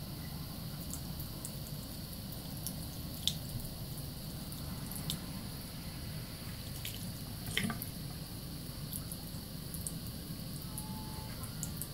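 Bathroom faucet running a thin stream into a sink while wet hands lather a bar of soap, with scattered small wet clicks and squelches, one more distinct about halfway through.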